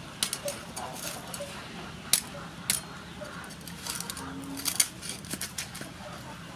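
Knife blade crunching through the crisp fried skin of pork belly on a wooden cutting board: a run of sharp crackles and cracks, the loudest about two seconds in and again near the end.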